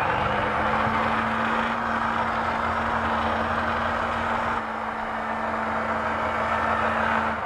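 Hamilton Beach food processor motor running steadily with a constant hum, its blade puréeing beans, cauliflower and tahini into hummus. It switches on at the start and cuts off near the end.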